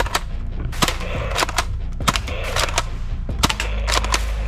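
Nerf Eaglepoint blaster firing foam darts at small targets: a quick, irregular run of about a dozen sharp pops and knocks.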